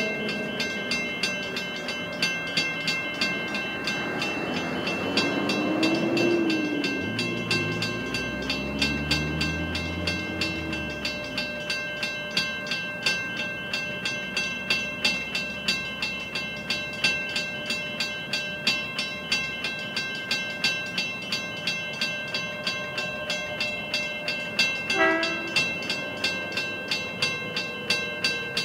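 Railway level crossing warning bell ringing in steady strikes, about two a second, while the crossing is closed. A few seconds in, a vehicle or train pulling away rises and falls in pitch under it.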